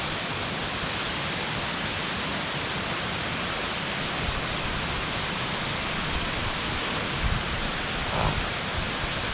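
Waterfall rushing: a steady, even roar of falling water, with a couple of faint knocks near the end.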